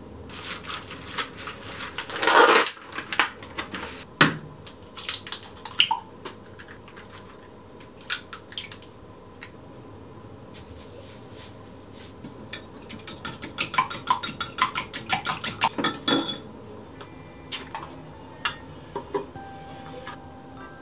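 Kitchen utensils clinking and knocking against dishes during food prep. There is a loud clatter a couple of seconds in. Past the middle, a fast run of clinks lasts a few seconds as eggs are beaten in a glass measuring cup.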